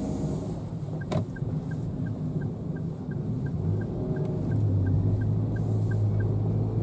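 Inside the cabin of a Daihatsu Move kei car on the move: a click about a second in, then the turn-signal indicator ticking evenly about three times a second, stopping about a second before the end. Under it runs the steady hum of the three-cylinder engine and road noise, which grows a little louder and steadier about two-thirds of the way through as the car speeds up after the turn.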